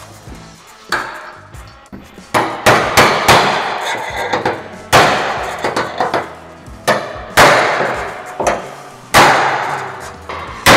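Hammer and dolly blows on the steel sheet metal of a dented 1940 Willys hood. The strikes are sharp and irregular, often in quick bunches, and each rings out briefly in the panel.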